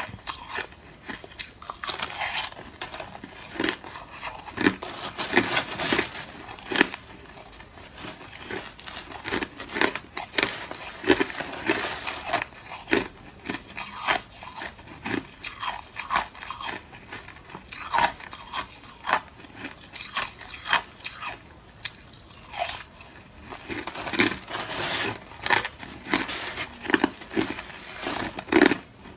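Close-up chewing of hard, clear crushed ice: irregular, sharp crunches and crackles as the ice is bitten and ground between the teeth, continuing throughout.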